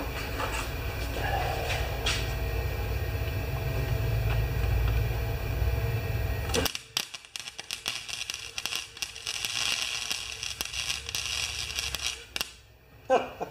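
A steady low hum for about the first half, then a wire-feed welder arc crackling and spitting for about six seconds as it welds the cast transmission housing of a Craftsman snowblower, stopping shortly before the end.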